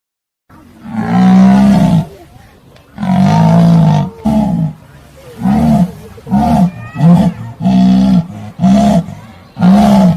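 A big cat roaring: two long roars, then a run of shorter, quicker grunting calls.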